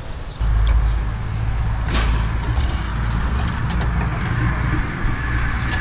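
Steady low rumble that comes in suddenly about half a second in and holds, with scattered small clicks and smacks of a person eating fresh spring rolls over it.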